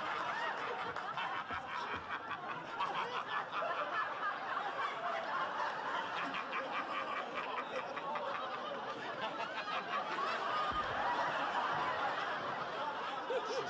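A large audience laughing, one long, steady wave of laughter that fills the pause in a roast joke.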